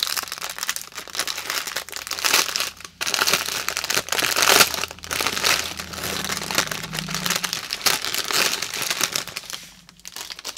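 Clear plastic bags of diamond-painting drills crinkling as they are handled and turned over by hand, with brief pauses about three seconds in and near the end.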